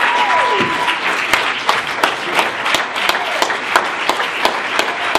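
Audience applauding, with many separate hand claps. Over the first second one high, held call falls in pitch.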